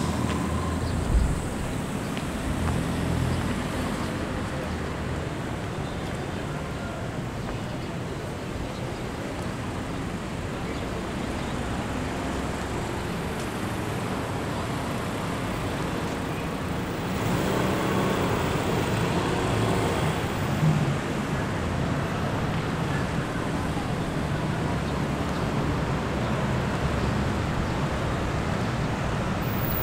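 Steady urban road traffic, cars passing in a continuous wash of noise. There is a short knock about a second in, and the traffic grows louder for a few seconds past the middle.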